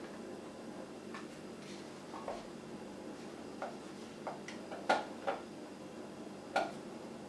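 Hard plastic air freshener casing clicking and knocking as it is handled and pressed shut by hand: a handful of light, separate taps, the loudest about five seconds in and another near six and a half.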